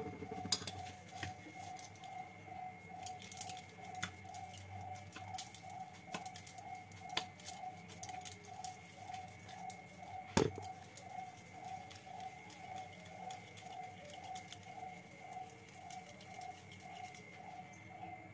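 Hands shaping a pearl-millet (bajra) dough ball into a roti on a wooden board: irregular soft taps and pats, with one sharper knock about ten seconds in. A faint steady hum that wavers slowly runs underneath.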